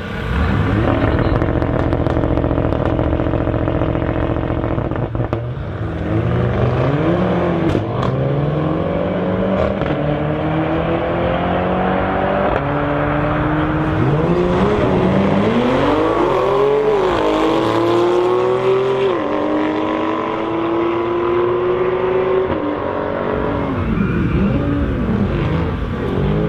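Audi RS6 Avant's twin-turbo V8 held at steady high revs for about five seconds, then launching and pulling hard, its note rising through the gears and dropping at each quick upshift. A second hard acceleration with several upshifts runs through the later part.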